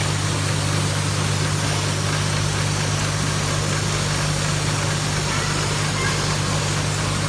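Factory machinery running steadily: a constant low hum over an even hiss.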